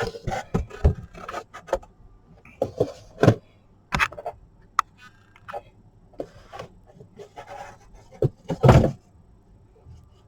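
Model kit boxes and packaging being handled: scattered knocks, taps and brief rustles, with a louder rustle near the end.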